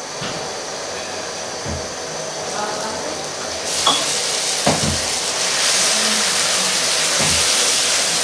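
Marinated chicken pieces sliding into hot ghee and fried onions in a wok, the sizzle jumping up about four seconds in and growing louder as more meat goes in. A few soft thumps of the spatula against the plate and pan.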